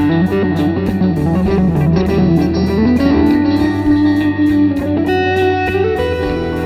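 Background music: an instrumental track with electric guitar playing a bending lead melody over a steady bass and a regular beat.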